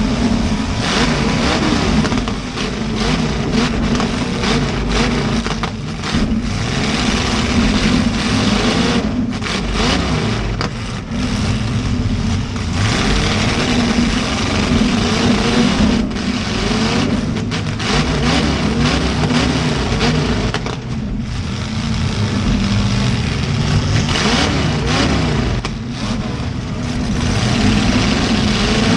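Demolition derby cars' V8 engines revving hard and unevenly, several at once, with repeated sharp bangs of cars colliding.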